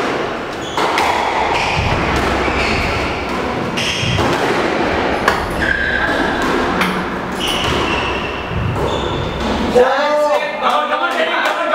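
Squash rally on a glass-walled court: the ball's sharp knocks off rackets and walls, with shoes squeaking briefly on the wooden floor. About ten seconds in, a voice rings out as play stops.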